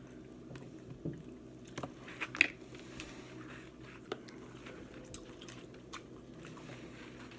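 Close-up eating sounds from a seafood boil of snow crab, shrimp and corn: chewing and squishing, broken by a few sharp cracks. The loudest crack comes about two and a half seconds in, over a steady low hum.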